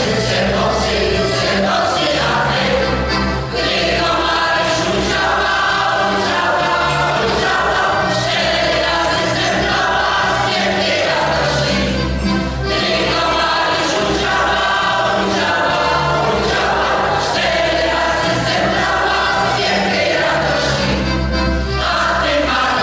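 Mixed choir of women's and men's voices singing a polka in Polish, over instrumental accompaniment whose bass notes change in a steady rhythm.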